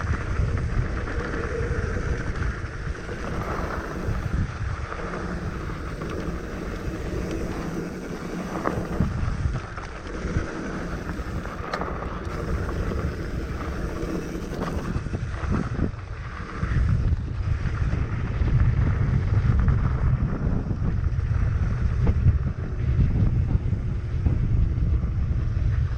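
Mountain bike rolling down a dirt trail, with wind rushing over the microphone, tyre noise and scattered clicks and rattles from the bike. It gets louder from about halfway through.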